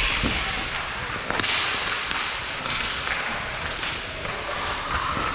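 Ice hockey play in a rink: skate blades scraping the ice and sticks hitting the puck, with a sharp crack about a second and a half in, the loudest sound.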